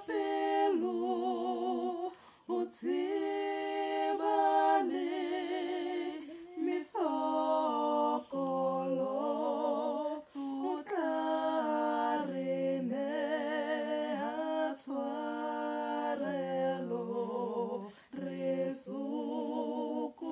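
One woman singing a cappella in harmony with herself, two recorded takes of her voice layered together. The song goes in phrases broken by short breaths, with vibrato on held notes.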